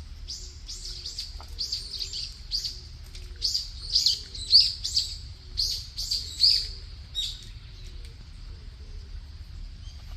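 A bird calling: a rapid series of short, high, down-slurred chirps, about two a second, that stops about seven seconds in.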